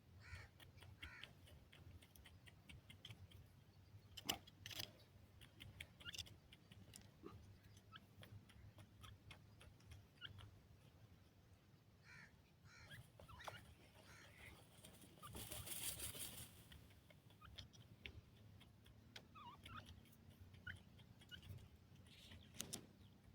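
Grey francolin chick calling: soft, short chirps that come in small groups with pauses between. There is a sharp click about four seconds in and a brief hiss past the middle.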